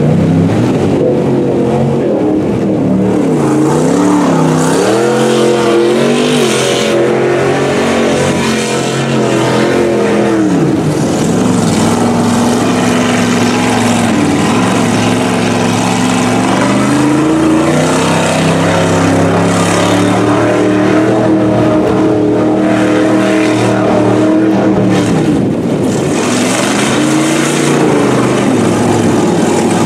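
Pickup truck engine revving up and down as it churns through deep floodwater. The revs dip and climb back about a third of the way in and again near the end, over the steady rush and splash of water thrown up by the spinning wheels.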